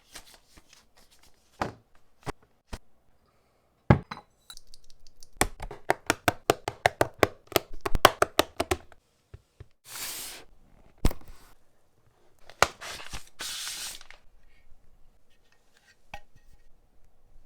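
Keyboard parts being handled during assembly: scattered sharp clicks and knocks, a fast run of clicks lasting about three seconds, and two brief rubbing or sliding noises.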